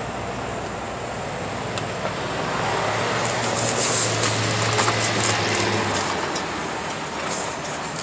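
A passing vehicle on the road, its noise swelling to a peak about four seconds in and then fading, with scratchy rubbing and clicking sounds over it.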